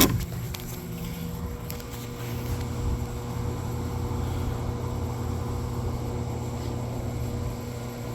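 One sharp knock as a plastic air box is set down into place in the engine bay, then a steady low hum.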